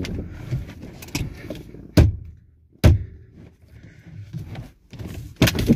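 Sharp knocks and clunks from a car's steering wheel being forced and tugged loose by hand, with three loud hits among smaller rattles.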